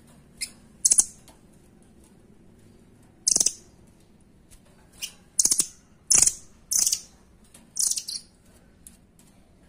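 Blue nuthatch giving about eight short, sharp, high-pitched calls, several of them fast rattling trills, spaced irregularly with gaps of up to two seconds.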